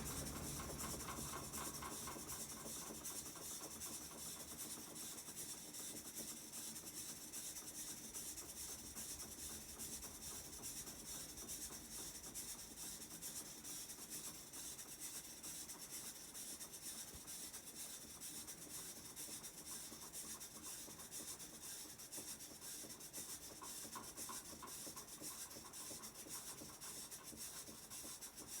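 Whirlpool top-loading washing machine running through its drain and spin cycle, a steady noise with a low hum that fades away over the first few seconds.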